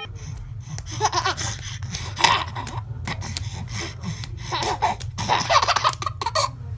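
A baby laughing in short, breathy bursts, over a steady low hum.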